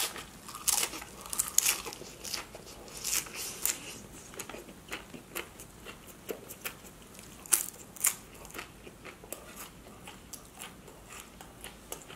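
Close-miked biting and chewing of a mouthful of loaded Dorito nachos, the tortilla chips crunching loudly at first; the crunches thin out to softer chewing over the last few seconds.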